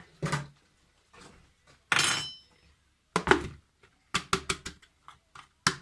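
Kitchen dishes and utensils knocking and clinking: a sharp clink with a brief ring about two seconds in, then quick runs of taps, about five a second, near the end.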